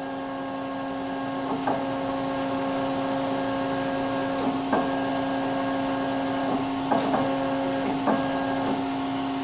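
Leadshine 863S68H stepper motor running unloaded at low velocity and acceleration settings, giving a steady whine with higher tones that cut out and resume several times, with faint clicks as they change. At this lowest setting it runs fine.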